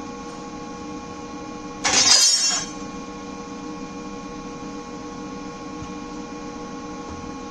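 Steady electrical hum with several fixed tones, with one loud clank about two seconds in that rings briefly at a high pitch.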